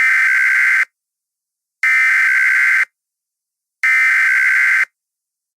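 Emergency Alert System SAME header: three identical harsh, screechy digital data bursts, each about a second long with about a second's gap between them. This is the coded signal that marks the start of a new alert message.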